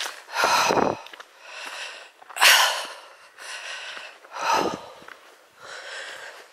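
A hiker's heavy breathing close to the microphone while walking, loud breaths about every two seconds with quieter ones between: she is out of breath and tired.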